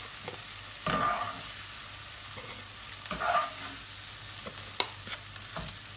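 Plastic spatula scraping cooked onion and tomato out of a hot non-stick frying pan into a plastic blender jar, over a light sizzle from the pan. Two longer scrapes come about one and three seconds in, with a few short taps of the spatula.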